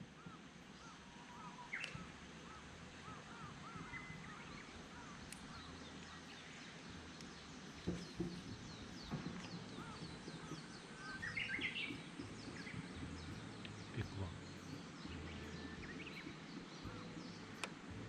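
Birdsong: several birds calling over and over with short chirps and arching whistles, and a Japanese bush warbler (uguisu) song standing out about eleven seconds in, a held whistle followed by a quick run of rising notes. A few faint knocks can be heard now and then over a low hum.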